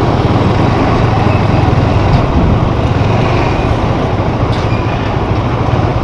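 Motorcycle running, heard from the rider's position as a loud, steady mix of engine and road noise that hardly changes in level.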